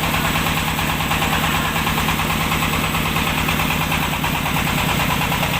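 Engine of a mobile rice milling machine running steadily at a constant speed, with a fast, even beat.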